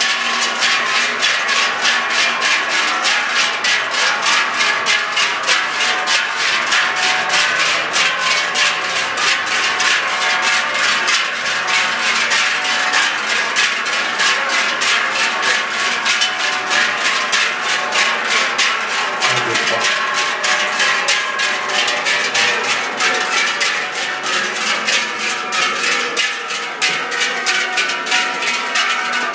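A troupe of bell ringers swinging large cowbells in unison: many bells clanging together in a steady, even rhythm.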